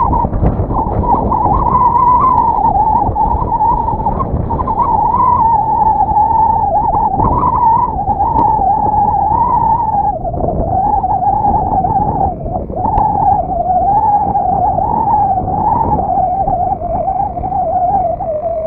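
Model airplane's 35cc NGH gas engine and propeller droning in flight. Its pitch wavers up and down and sinks lower near the end, while strong wind buffets the microphone.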